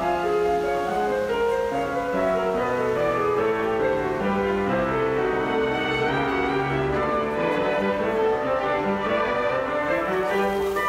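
Background instrumental music: a slow melody of held notes over a lower accompaniment.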